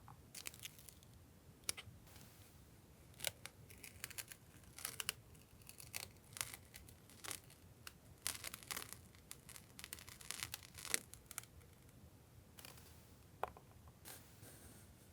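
Paper and plastic stationery packaging being handled at a desk: irregular crinkling and rustling with short tearing sounds, busiest in the middle and thinning out near the end.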